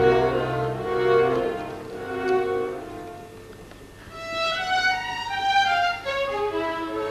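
Chamber string orchestra playing: sustained string chords thin out to a quiet passage about halfway, then the violins come in with a high, stepping melody.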